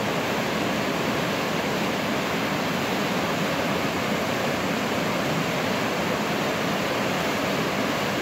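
Whitewater of a river rapid rushing steadily through a standing wave, an even, unbroken water noise.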